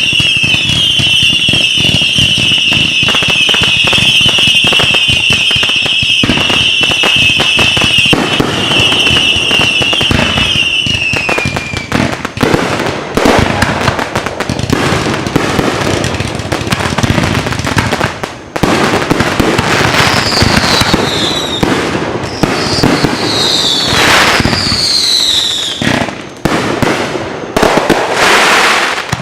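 A passing train. Steel wheels squeal in a high wavering tone for the first ten seconds or so, and there is rapid clattering and banging of wheels on the rails throughout. Shorter falling squeals come twice near the end, and the sound cuts off suddenly.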